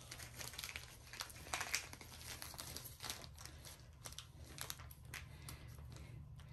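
Plastic packaging crinkling and rustling in irregular small crackles as kit items are handled, faint, over a low steady hum.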